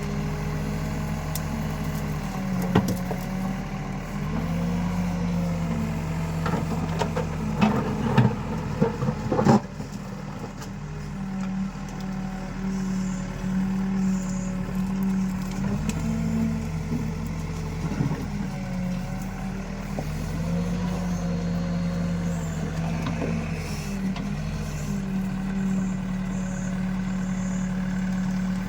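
Escorts Digmax backhoe loader's diesel engine running under working load, its pitch rising and falling every few seconds as it digs and loads. A cluster of loud metallic clanks and knocks comes about 7 to 9 seconds in, with single knocks now and then.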